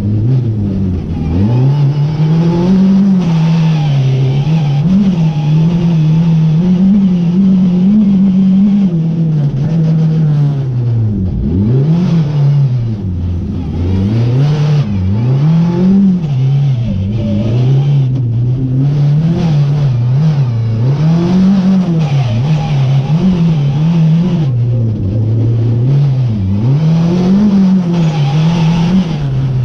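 Rally car engine at full stage pace, heard from inside the cockpit, its revs climbing and dropping over and over as the driver works through the gears. About eleven seconds in the revs fall very low, then climb again.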